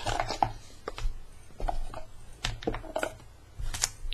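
Hands handling a small cardboard product box, sliding the card insert out with irregular scrapes, taps and knocks, the sharpest near the end.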